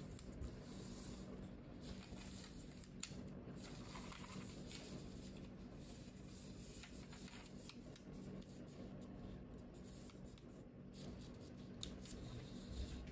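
Faint rustling and soft crinkling of a sheet of origami paper being folded and creased by hand, with a few small clicks, over a steady low hum.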